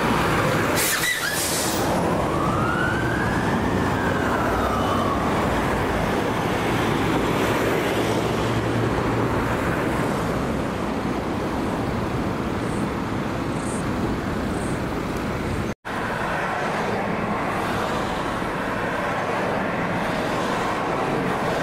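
Fire tanker siren on a slow wail, rising and falling in long sweeps, over steady road traffic noise. The siren fades after the first few seconds, leaving the traffic, and a fainter wail returns near the end.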